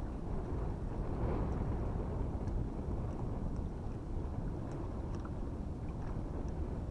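Steady low rumbling noise of wind and water around a boat, buffeting the microphone, with faint scattered ticks that fit raindrops landing.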